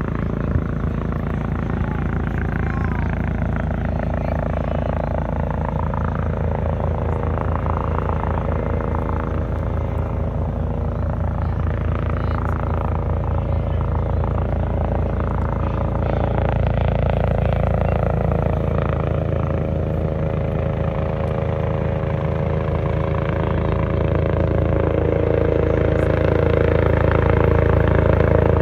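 Eurocopter EC145 twin-turbine helicopter running: a fast, even rotor beat under a steady turbine whine, growing slowly louder over the last third.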